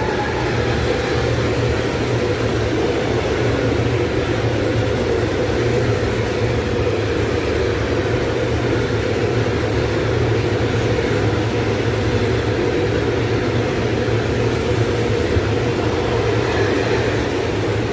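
Freight train of tank wagons rolling past at close range: a steady, loud rumble of wagon wheels on the rails.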